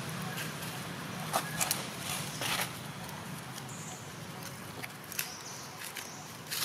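Dry leaf litter crackling and rustling in a few sharp snaps as macaques scramble and grab over it, over a steady low hum. A few faint high chirps come in past the middle and near the end.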